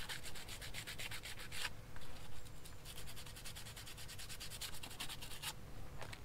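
Sandpaper rubbed back and forth over a rubber bicycle inner tube in quick, rapid strokes, with short pauses about two seconds in and again near the end. The tube is being roughed up around a puncture so that a patch will stick.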